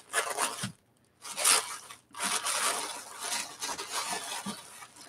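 Wrapping being torn and rustled by hand as a wrapped piece of jewelry is opened, in several spells with short pauses between them.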